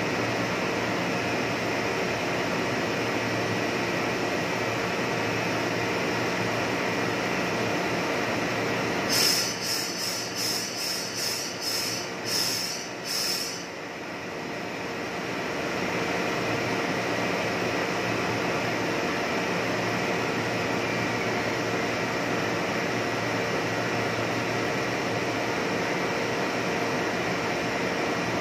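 Steady drone of a plastic blown-film extrusion line running. Midway a run of about ten short high-pitched pulses, roughly half a second apart, sounds over it, and the drone briefly dips afterwards.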